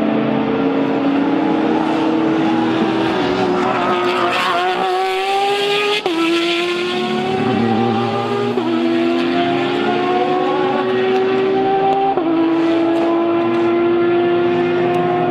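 GTE-class race car engine accelerating hard through the gears. Its pitch climbs steadily and drops sharply at each upshift, four times, about every three seconds.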